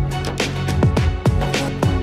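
Background electronic music with a steady, fast kick-drum beat of about two beats a second over a held bass line.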